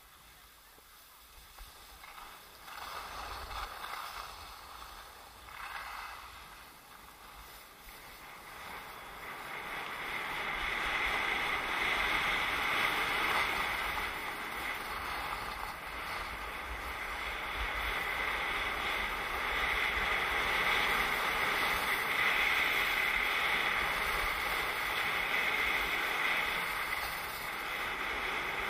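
Skis hissing and scraping over packed snow, with a low wind rumble on the microphone, growing louder from about ten seconds in.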